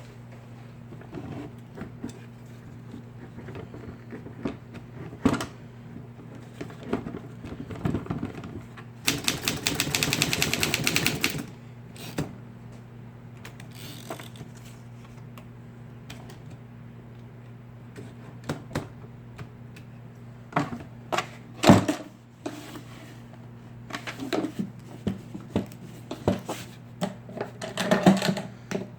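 Scattered mechanical clicks and knocks over a steady low hum, with a run of rapid, evenly spaced clicking lasting about two seconds near the middle, like a small machine running briefly.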